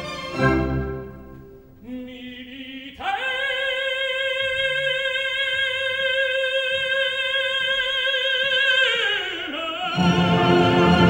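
Operatic tenor voice holding a long high C with vibrato for about six seconds. The note slides down near the end, and the full orchestra then comes in loudly.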